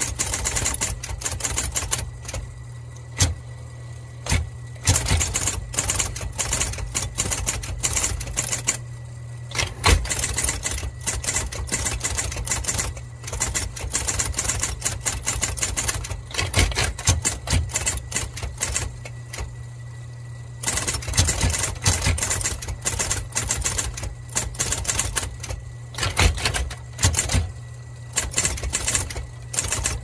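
IBM Model D electric typewriter typing in bursts of rapid sharp key strikes, with short pauses. Its motor hums steadily underneath, and the carriage returns between lines.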